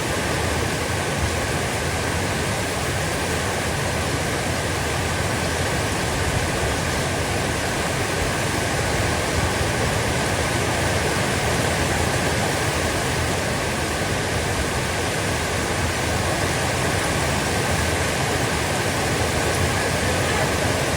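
Heavy rain falling steadily, an even hiss with no letup. A faint steady high tone runs underneath it.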